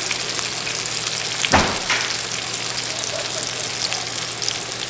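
Flour-dredged quail pieces frying in oil in a cast iron chicken fryer: a steady sizzle with fine crackling, and a single knock about a second and a half in.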